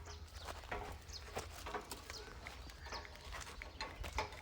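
Faint rural ambience: scattered short, distant animal calls over a steady low rumble.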